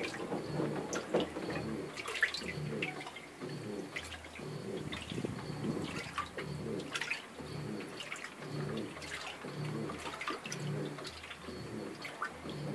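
WaveForce 14 kg top-loading washing machine on its jeans programme, agitating a load of jeans in water. Water sloshes and splashes over a low motor hum that swells and fades about once a second as the drum turns back and forth.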